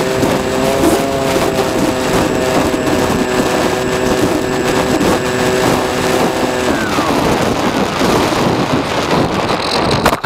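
Onboard sound of a Swift II RC flying wing in flight. Wind rushes over the microphone throughout, and a steady motor and propeller whine holds until about seven seconds in, when the throttle is cut and its pitch drops away. The wing glides in and touches down on the grass near the end.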